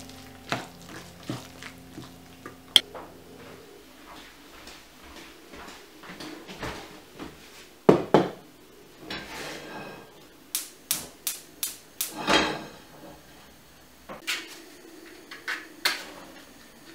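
A spoon clinking and scraping against a glass mixing bowl as thick grated-apple batter is stirred, with a series of sharp taps on the glass, the loudest about eight seconds in.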